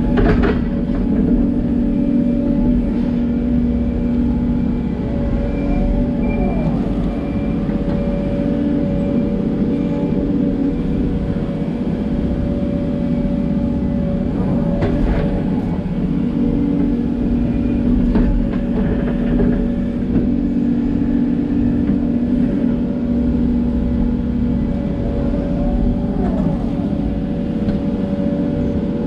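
Hidromek 140LC excavator's diesel engine running steadily under load while digging and moving soil, with a thin high whine over the drone. Sharp knocks come just after the start and again about halfway.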